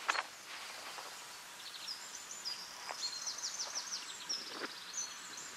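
Small songbirds calling in high, quick chirps over a faint steady hiss, starting about two seconds in, with a fast trill of down-slurred notes about three seconds in.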